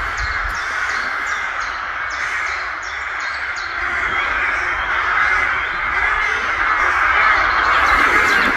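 A large colony of crows cawing all at once from their nests in the treetops, a dense, continuous chorus of overlapping calls that grows a little louder in the second half.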